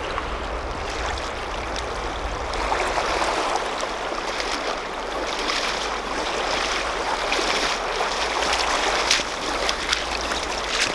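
River water rushing and lapping over a shallow rocky bank. Splashing steps of a person wading through the shallows come through more in the second half.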